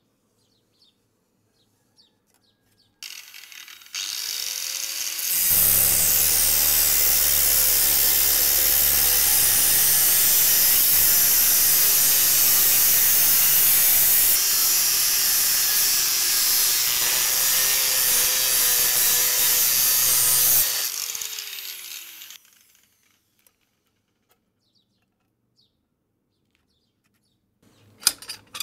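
Angle grinder switched on a few seconds in, then cutting through a steel circular saw blade with its abrasive disc for about fifteen seconds before it is switched off and winds down. A few sharp metal clinks near the end.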